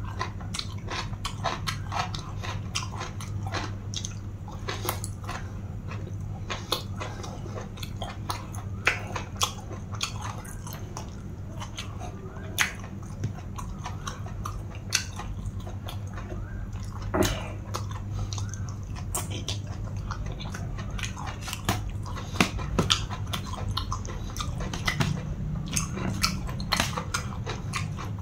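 Close-miked chewing and crunching of spicy pounded long-bean salad with raw yardlong beans, full of sharp clicks and mouth smacks. A steady low hum sits underneath.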